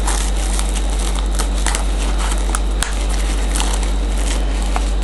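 A box of trading card packs being opened by hand: scattered crinkles and crackles of plastic wrapping and cardboard, over a steady low electrical hum.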